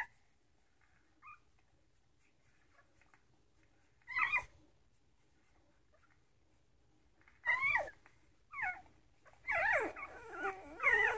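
Nursing puppies whimpering and crying at their mother's teats: a few short whines spaced seconds apart, then a run of overlapping wavering cries near the end. This is the crying of puppies when the mother's milk is starting to dry up, begging her to let down more milk.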